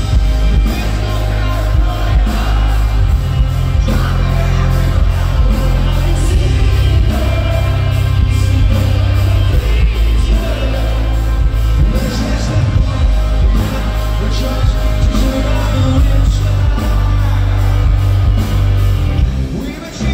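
Live rock band playing loud: electric guitars, bass and drums under a sung vocal, with a heavy, boomy low end. The music dips briefly near the end.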